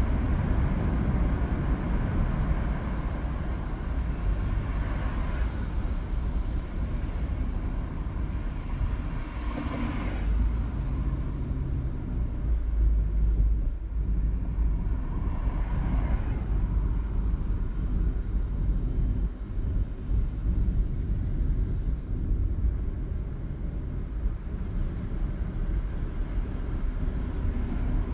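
Car driving through city traffic, heard from inside the cabin: a steady low rumble of engine and tyre noise, with a couple of brief louder swells about ten and sixteen seconds in.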